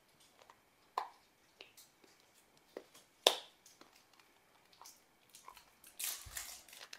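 Quiet, scattered clicks and crackles of a plastic toy-car package being turned and pressed in the hands, with one sharper click about three seconds in. A louder rustle comes near the end.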